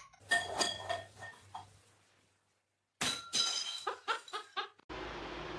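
Light clinking and rattling of small hard objects, like glass or dishes, with short ringing tones. There are two separate runs with a gap of silence between them.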